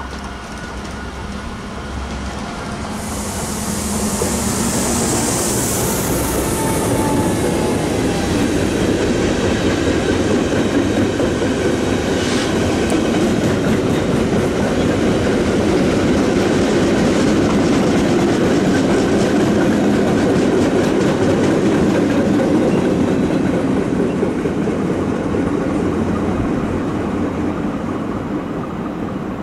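A freight train of loaded double-deck car-transporter wagons passing at speed, its wheels running over the rails in a steady rumble and clatter. It builds over the first four seconds, holds, and fades over the last few seconds as the train clears, with a brief high hiss a few seconds in.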